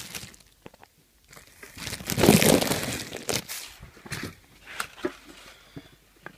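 Plastic packaging crinkling and rustling as it is handled, loudest about two seconds in, then a few light knocks and clicks.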